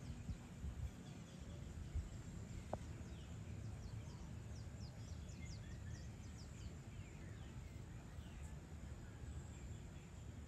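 Evening outdoor ambience: a steady low rumble with birds chirping in many short, high, quick downward notes, thickest in the middle.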